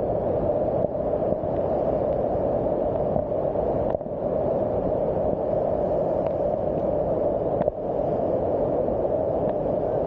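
Waterfall pouring down a rock face close by, a steady, unbroken rushing roar of falling water.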